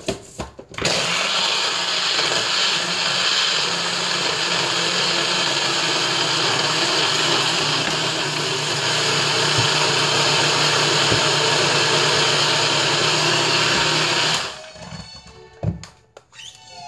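Countertop blender running steadily, blending a thick smoothie of frozen mango, banana, kale, almond milk and ice. It switches on just under a second in, cuts off sharply near the end, and a couple of knocks follow as the jar is handled.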